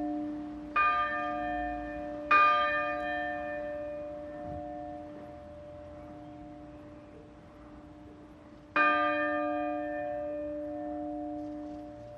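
Grensáskirkja's church bells struck three times: about a second in, again a second and a half later, and once more near the end. Each stroke rings on and slowly fades over a steady hum left by the earlier strokes.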